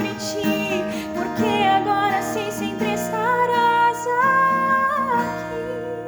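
Woman singing a slow Portuguese worship song over acoustic guitar, holding one long note from about three seconds in.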